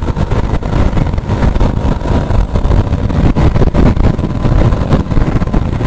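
Motorcycle on the move: gusty wind buffeting on the microphone over the running engine, the level jumping up and down rapidly.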